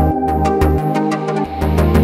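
Electronic background music with a steady beat, synthesizer chords and a pulsing bass line.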